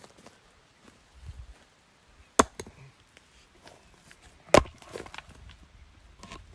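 Two sharp knocks about two seconds apart, with a few lighter taps and clicks around them.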